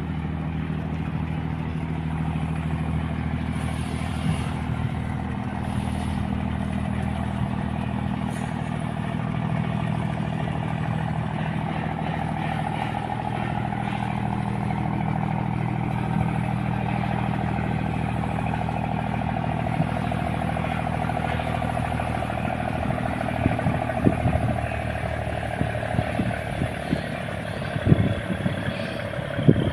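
Heavily loaded sand barge's diesel engine running hard against the current, a steady low drone with a higher whine above it. A few short knocks near the end.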